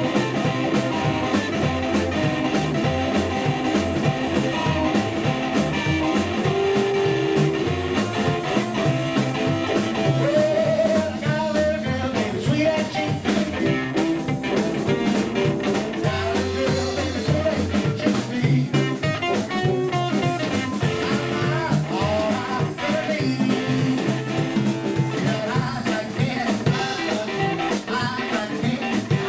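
Live blues band playing an up-tempo shuffle on hollow-body electric guitar, upright double bass and drum kit, with harmonica and singing.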